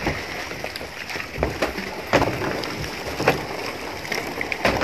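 Plastic fish crates and fish being handled on a wooden boat deck: several irregular sharp knocks and clatters, heard over a steady hiss of wind and sea.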